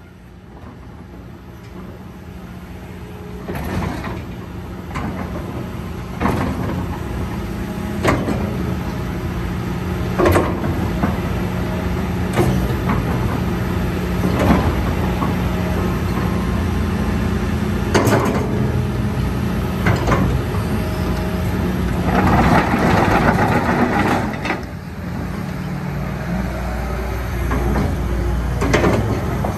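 Hitachi ZX200-3 excavator's diesel engine running steadily, with sharp clicks and knocks every couple of seconds. A rushing hiss joins in about three quarters of the way through.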